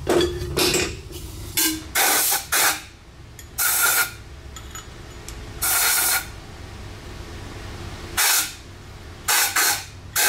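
Compressed-air blow gun giving about ten short blasts of hissing air, blowing out motorcycle shock absorber parts to clean them.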